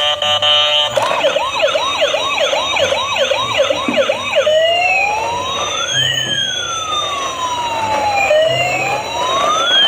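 Toy ambulance's electronic siren: a rapid pulsing beep for about a second, then a fast yelp of rising chirps about three a second, changing a few seconds in to a slow wail that rises and falls.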